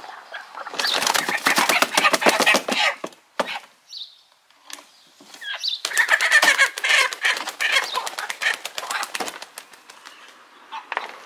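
A domestic hen flapping its wings hard in two bouts of a few seconds each, a fast run of wingbeats, as it struggles while held upside down by its legs.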